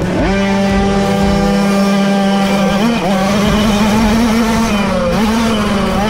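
Small racing moped engine held at high revs under throttle, its pitch dipping briefly as the throttle is eased and picked up again, once just after the start and again about halfway through and near the end.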